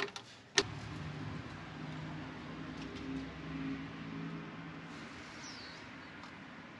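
A sharp click, then a steady, low engine hum from a motor vehicle that fades away after about five seconds.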